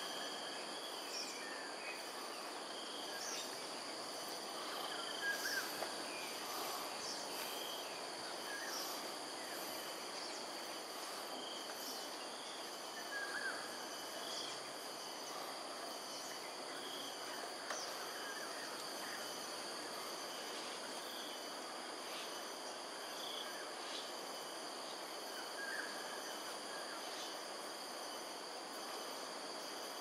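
Steady high-pitched insect drone, several continuous shrill tones held without a break, with a few scattered short chirps over a faint even background noise.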